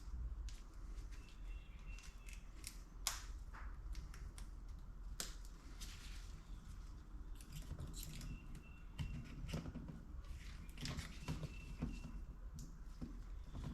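Faint small metal clicks and scrapes of a C-clip being worked onto a Yamaha YZ125 transmission shaft, with a couple of sharper clicks about three and five seconds in and brief light metallic rings.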